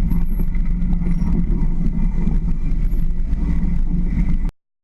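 Jeep Wrangler YJ engine running steadily, a loud low rumble with a held low tone, cutting off suddenly near the end.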